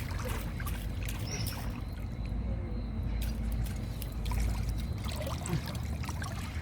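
Shallow river water splashing and trickling in small irregular spatters as an exhausted tarpon is pushed back and forth to run water through its gills, over a steady low rumble.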